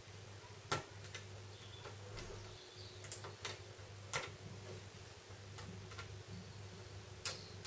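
A handful of small sharp clicks and ticks, spread irregularly with the loudest about a second in, as a plastic pry tool works against a smartphone's frame and logic board, over a faint steady hum.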